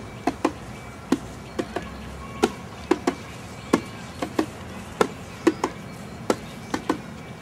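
A series of sharp knocks, two or three a second and often in close pairs, in a loose repeating rhythm.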